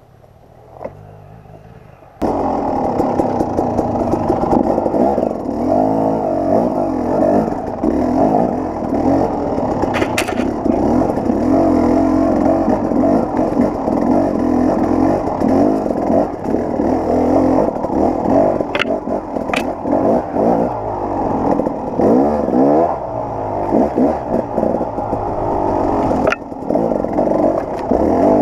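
KTM 300 XC-W two-stroke dirt bike engine working up a steep rocky climb, its pitch rising and falling as the throttle is worked. The engine comes in loudly and abruptly about two seconds in after a quiet start. A few sharp clacks sound over it.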